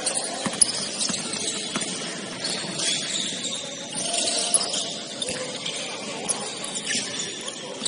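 Basketball game noise: scattered short, sharp squeaks and taps from play on the court over a steady din.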